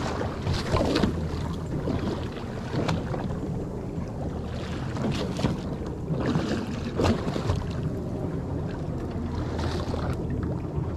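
Sounds on a small offshore boat: wind on the microphone and water splashing against the hull over a steady low hum, with a few short knocks and clicks as the fishing rig is handled at the side.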